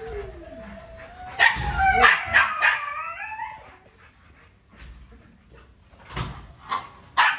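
A dog whining and yelping in a run of high, wavering cries, loudest about one and a half to three and a half seconds in, with a few sharp knocks.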